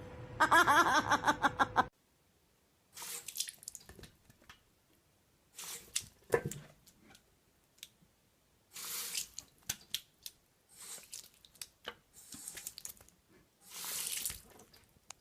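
Water splashing and dripping in short bursts, like a running tap or sink, with small clicks in between. It is preceded for about the first two seconds by a pitched, rapidly pulsing voice-like sound that cuts off suddenly.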